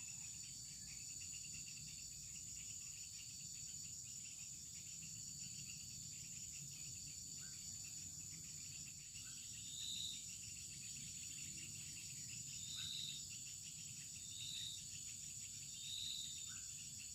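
Insects chirring steadily in a high, finely pulsing drone. In the second half a short high note repeats four times, one every second or two.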